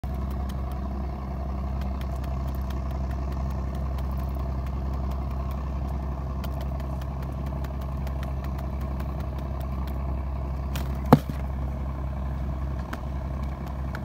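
A running engine's steady low hum, with faint scattered ticks and one sharp click about eleven seconds in.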